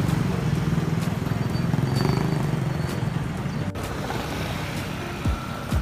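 A motor vehicle engine running steadily, with street traffic and motorcycles passing, heard from a moving vehicle. The sound drops out briefly for an instant about two-thirds of the way through.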